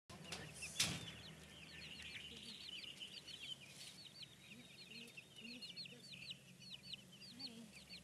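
Newly hatched chicks and ducklings peeping continuously in rapid, high, overlapping cheeps, with one sharp knock about a second in.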